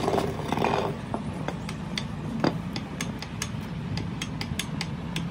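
A short scraping rub at the start, then irregular small metallic clicks and clinks as the ball stud of a truck tie rod end is worked back and forth by hand. A steady low hum runs underneath.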